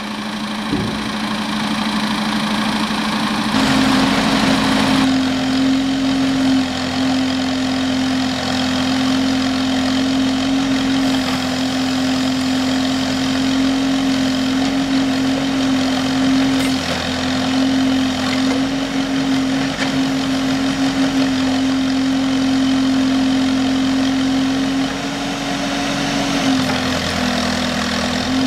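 Diesel engine of a JCB backhoe loader running steadily while its backhoe arm works. The engine note rises a few seconds in and drops a little near the end.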